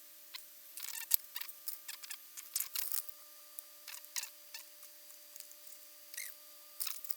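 Irregular light clicks and taps of a computer mouse being used, in small clusters, over a faint steady hum.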